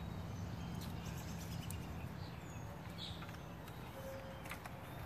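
Quiet outdoor background: a steady low hum, with a couple of faint bird chirps and a few light clicks from a chainsaw being handled.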